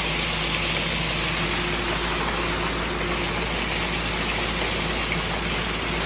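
Ready-mix concrete truck running steadily while wet concrete slides down its chute, a continuous gushing hiss over a low engine hum.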